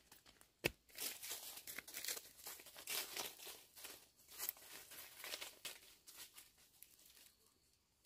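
Footsteps in plastic sandals crunching over dry leaves and forest litter, with leaves and brush rustling and crackling as they pass. The sound fades away near the end.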